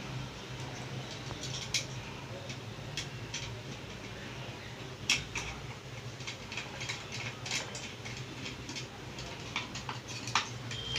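Irregular small metallic clicks and ticks of screws being turned in with a screwdriver on a mixer-grinder motor's housing, with sharper clicks about five seconds in and near the end, over a faint steady low hum.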